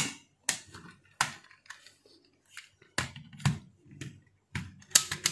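Plastic clicks and knocks as the front panel of a JVC KD-R716 car stereo is handled and pressed onto its metal chassis: about ten sharp, uneven clicks with short pauses between them.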